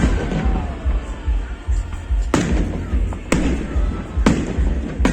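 Fireworks going off: sharp bangs of bursting shells, three in the second half about a second apart, with another right at the end, over a steady low rumble.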